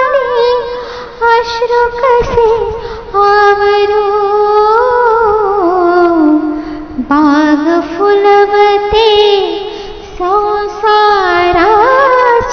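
A woman singing a Marathi mangalashtak, the verses sung at a Hindu wedding, in a high voice with long held notes and ornamented, wavering glides between them.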